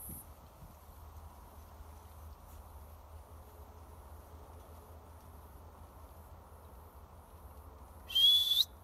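A person whistles once, loudly, to call a dog. The whistle lasts about half a second and rises in pitch at its end. Before it there is only faint outdoor background, with a thin high insect buzz at the very start.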